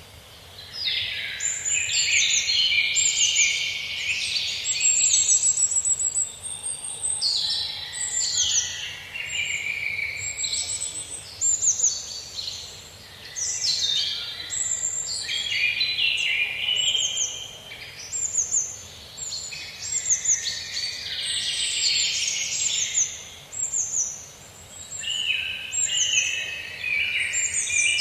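Several songbirds singing together in a busy chorus of overlapping chirps and trills, with short lulls every few seconds.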